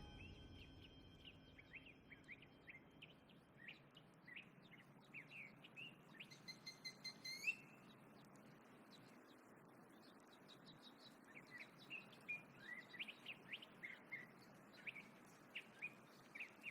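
Faint small birds chirping in quick, scattered calls over a soft ambient hiss, with one longer whistled note about six seconds in that rises at its end.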